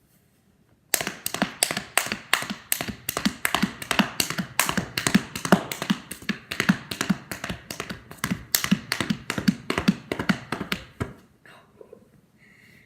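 A person imitating a galloping horse with her body, not her mouth: a rapid, rhythmic run of sharp taps, several a second, that starts about a second in and stops about eleven seconds in.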